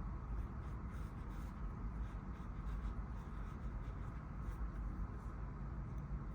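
Faint, scratchy strokes of a small brush applying UV resin to a small 3D-printed figure, over a steady low hum.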